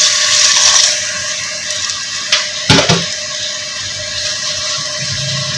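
Water poured from a jug into an aluminium pot of mutton trotters and whole spices, splashing for about the first second, then a lower steady hiss. A sharp knock comes about three seconds in.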